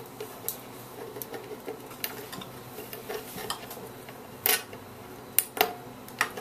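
Small metal clicks and scrapes as a wire hook tool picks at a spring inside a Super 8 movie projector's mechanism, trying to unhook it. Louder clinks come about four and a half and five and a half seconds in, one ringing briefly.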